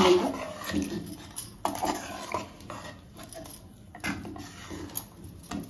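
A steel spoon scraping and knocking irregularly against a metal bowl while stirring thick, sticky cooked rice-flour dough.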